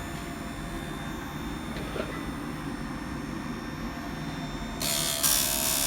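Electric chainsaw chain sharpener running steadily with a faint whine, then about five seconds in its grinding wheel meets a chain cutter tooth with a loud grind set at a 30-degree angle.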